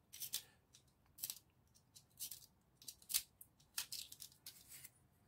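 Utility knife blade cutting and scraping at cotton thread wound around a vacuum cleaner's plastic brush roll: faint, irregular scratchy clicks and scrapes.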